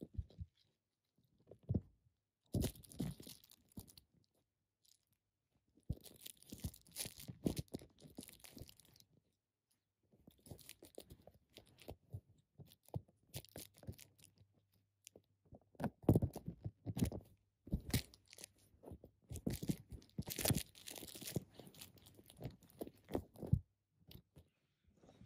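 Close scratching, scraping and rubbing in irregular bursts as a Bengal kitten paws at the phone and the fabric around it, right against the microphone.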